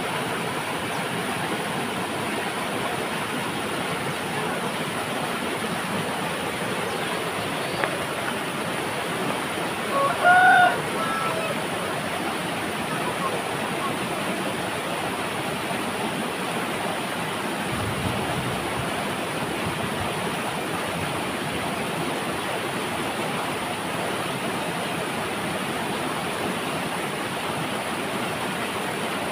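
Fast, muddy river water rushing steadily over and between large boulders. A brief, high-pitched call about ten seconds in.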